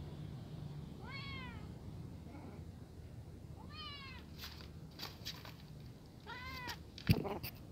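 A kitten meowing three times, about two and a half seconds apart; each meow is short and high and rises then falls in pitch. Between the later meows come light clicks, and near the end a single sharp knock, the loudest sound.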